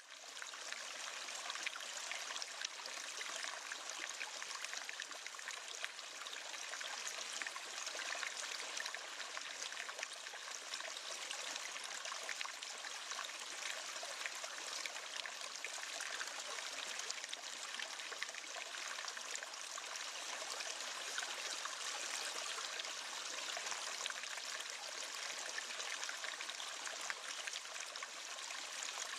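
River water flowing over rocks, a steady rushing with fine splashing and gurgling detail that fades in at the very start.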